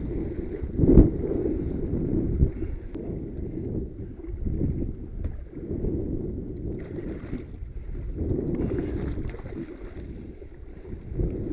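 Wind buffeting the microphone on an open boat at sea: a rough, uneven rumble, with a sharp thump about a second in and a smaller knock a little later.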